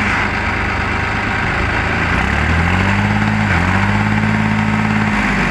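New Holland 3630 tractor's three-cylinder diesel engine running, its revs rising about two seconds in as the driver puts on power to spin the rear wheels in deep loose soil. The revs dip briefly, hold, and ease off near the end. The tractor is stuck.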